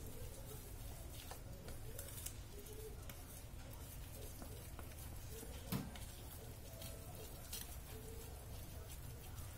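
Chopsticks stirring thick cake batter in a stainless steel bowl: a soft, wet patter with light clicks of the sticks against the bowl, and one sharper knock nearly six seconds in.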